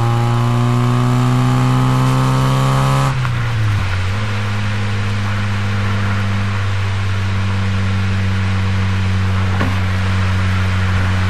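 Exhaust note of a Corsa's C20XE 2.0-litre 16-valve four-cylinder engine, picked up close to the exhaust while driving. The revs climb steadily under acceleration, then about three seconds in it lifts off and settles into a steady, lower drone at cruising speed.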